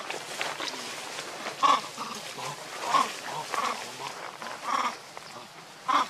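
Young macaques giving short squealing calls while play fighting, about five separate calls spaced roughly a second apart.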